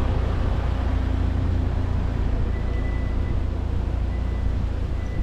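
A steady low rumble of outdoor noise, with a faint thin high tone coming and going in the second half.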